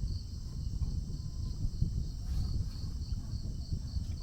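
An insect chirping in an even rhythm, about three high pulses a second, over a low, uneven rumble.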